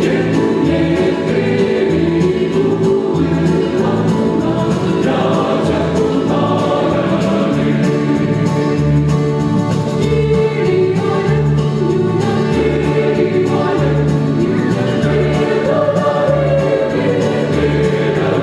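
Large mixed-voice church choir singing a Christmas carol in harmony, with long held notes and no break.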